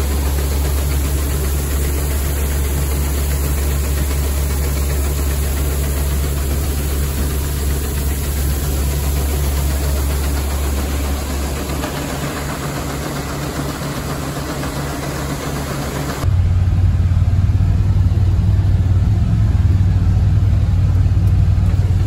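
Steady running of grain-handling machinery, a tractor-driven auger and conveyor elevating wheat into a bin, with a constant low engine hum. About sixteen seconds in it cuts to a louder, deeper steady engine drone heard from inside a vehicle cab.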